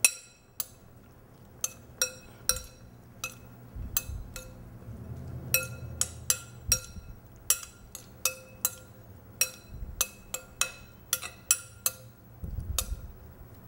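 Metal spoon clinking against a glass mixing bowl while shrimp and chopped vegetables are stirred in sauce: an irregular run of short ringing clinks, about two or three a second.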